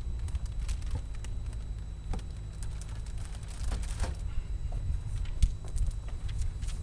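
Plastic packaging crinkling and rustling in irregular crackles and clicks as wrapped pontoon frame parts are handled, over a steady low rumble of wind on the microphone.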